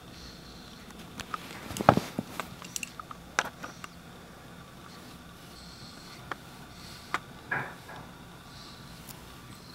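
A sleeping person snoring, with short sharp snorts and clicks: a cluster about two seconds in, the loudest among them, and a few more around seven seconds. Faint breaths come every few seconds between them.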